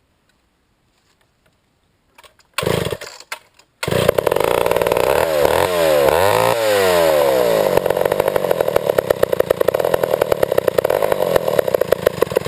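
Old Pioneer two-stroke chainsaw starting: a short burst about two and a half seconds in, then it catches about a second later. It revs up and down, then runs hard at high speed with an uneven pulse. The carburettor is not tuned right and the saw won't idle.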